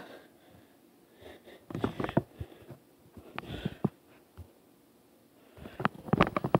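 Knocks and thumps in three short clusters about two seconds apart, from a child moving about right next to a handheld phone and handling it.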